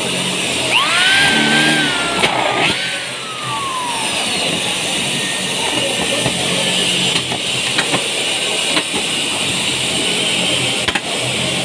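Corded electric drill briefly triggered about a second in, its motor whine rising quickly and then falling away as it winds down. Scattered sharp clicks and knocks follow over a steady background hum.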